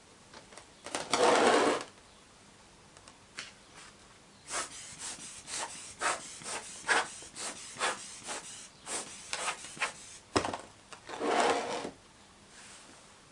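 A metal moulding flask half packed with greensand being handled on a board: a scrape as it is shifted about a second in, then a run of light irregular taps and rattles, a sharp knock as it is set down, and another scrape near the end.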